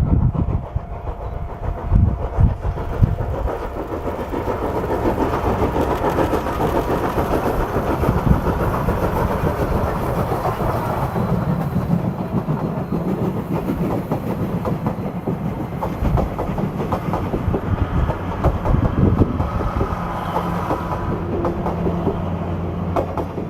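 The SL Yamaguchi train hauled by steam locomotive C57 1 rolling past, its coaches' wheels clacking over the rails in a steady, continuous rumble.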